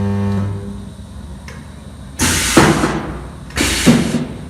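Resistance spot welding machine cycling. Its electrical hum, a steady buzz, stops about half a second in. Then come two loud hissing bursts about a second and a half apart.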